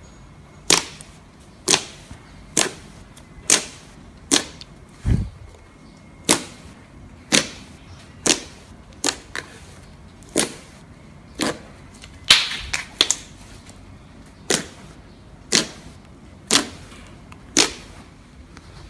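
Fingers pressing and poking into a large mass of thick slime, each press letting out a sharp pop of trapped air, about one a second.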